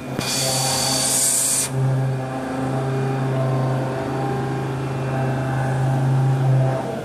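A bridge-type CNC machining centre running with a steady, even hum through nearly the whole stretch. A loud hiss sits over it for about the first second and a half and then stops.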